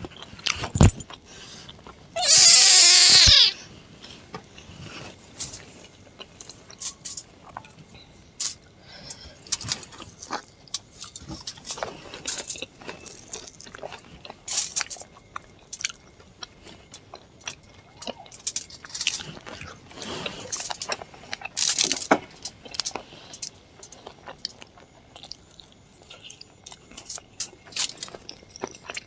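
Close-up eating sounds: wet chewing, lip smacks and crackles as pieces of puffed luchi puri soaked in chicken curry are eaten by hand. One loud drawn-out sound, about a second long, comes about two seconds in.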